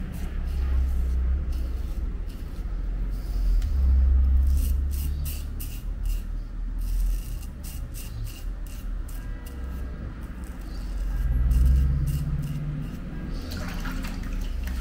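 Safety razor scraping through lathered beard stubble in a run of short strokes, over a low rumble.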